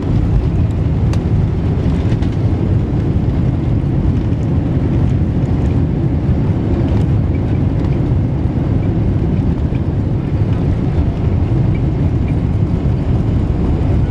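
Loud, steady low rumble inside the cabin of a Boeing 747-400 during its landing rollout on the runway, with a few faint light rattles.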